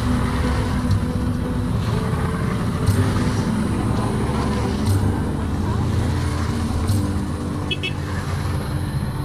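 Motorcycles riding past one after another on a wet road, their engines running steadily, with a brief series of short high beeps near the end.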